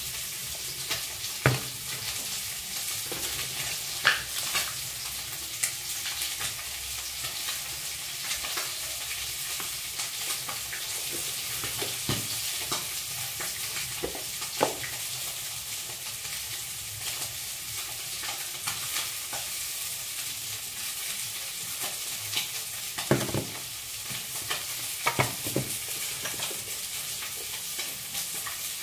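Steady sizzling hiss of cooking oil frying in a wok on a gas stove, broken by scattered sharp clicks and taps as spices are handled over a steel bowl.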